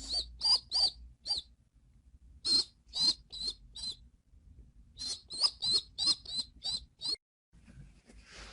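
Baby pigeon (squab) peeping: short, high squeaks that rise and fall, repeated in three bouts, the last the longest. The peeping stops abruptly about seven seconds in.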